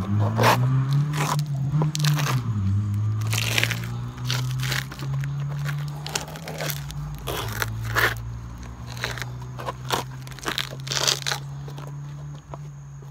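Worn Timberland boat shoes' crumbling rubber soles scraping and crunching on gritty concrete steps in irregular strokes, over a low steady hum.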